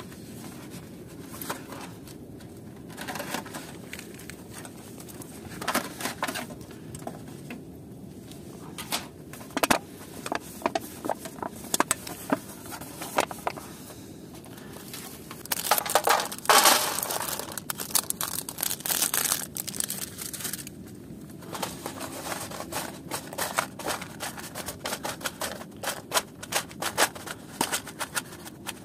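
Disposable aluminium foil trays crinkling and scraping under the hands in irregular crackles and clicks. About halfway through comes a longer, louder spell of rattling crackle as alder wood chips go into a foil tray.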